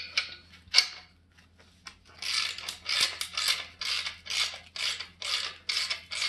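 Ratchet wrench turning the threaded screw of an Eastwood MacPherson strut coil spring compressor: a couple of sharp clicks as the wrench is fitted, then quick, evenly spaced ratcheting strokes, about two or three a second, from about two seconds in.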